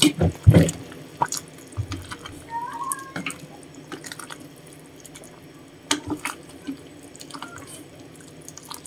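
Chicken and misua noodle soup with sponge gourd and pechay boiling in a stainless steel pot, while a wooden spatula stirs it and knocks against the pot now and then, loudest near the start.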